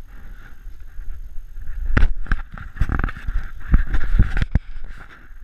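Footsteps crunching and shuffling through dry leaf litter, an irregular run of sharp crackles over low rumbling movement noise from the body-worn camera, loudest in the second half.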